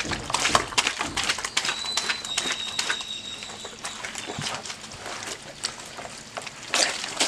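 Wet velvet cloth squelching and patting under hands pressed against a stone washing basin: a continuous string of soft, sharp wet clicks. A bird calls in the background, with a steady high whistle held for a second or two near the start.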